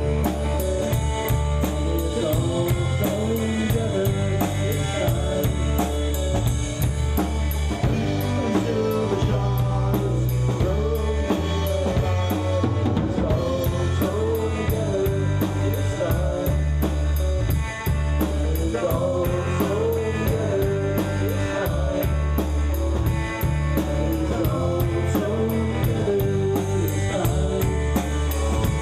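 A rock band playing a song live on electric guitar, electric bass and drum kit, with a steady drum beat.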